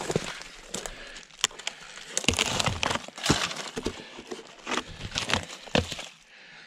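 Dry, splintered wood at a broken tree stump crackling and snapping as a gloved hand pulls at the splinters, with irregular sharp cracks over a rustle; the wood is rotten and falling apart.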